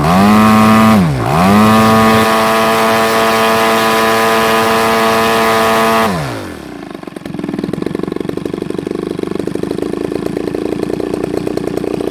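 DLE 55 single-cylinder two-stroke petrol model aircraft engine, turning a wooden propeller on a test stand after an overhaul. It is held at high throttle, with a short dip and recovery about a second in. About six seconds in it is throttled back and settles to a steady idle.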